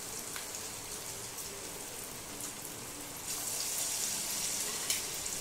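Semolina-and-curd pakoras deep-frying in hot oil in a kadhai: a steady crackling sizzle of the oil bubbling around the batter, growing louder a little past three seconds in.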